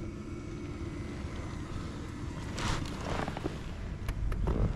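Netted northern pike being handled aboard a fishing boat: a short rush of noise about two and a half seconds in and a few knocks near the end, over wind on the microphone and a low steady hum.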